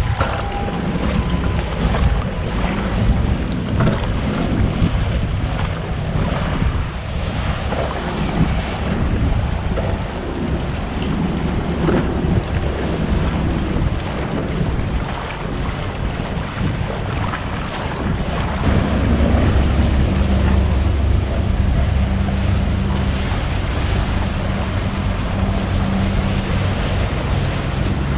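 Wind buffeting the microphone over waves lapping on the lakeshore. From about two-thirds of the way in, a low steady drone grows louder underneath.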